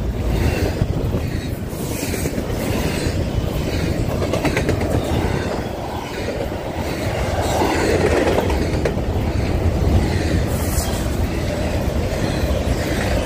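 Double-stack intermodal container train passing close by: a steady rumble of well-car wheels on the rails with repeated clicking as the wheels cross rail joints.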